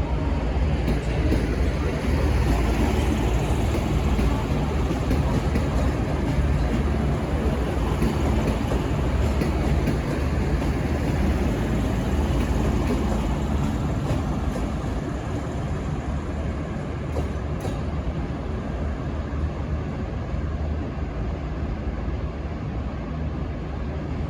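V/Line N class diesel-electric locomotive running steadily as the train moves, a low engine drone under the rumble of the rolling train, easing a little quieter about halfway through.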